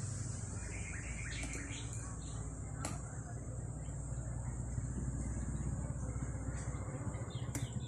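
Steady high-pitched insect buzzing with a few short bird chirps over a low steady hum, and a single sharp click about three seconds in.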